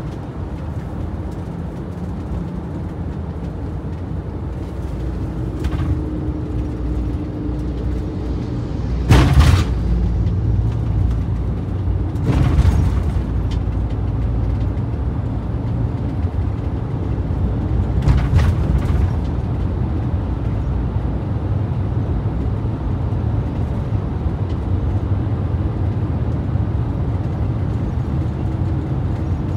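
Road noise heard from inside a van's cab while driving: a steady low rumble of engine and tyres, with three brief louder whooshes spread through the middle.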